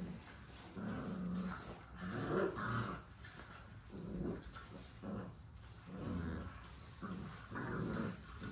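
American bully puppies growling in play as they wrestle in the litter: a string of short puppy growls, one every second or so.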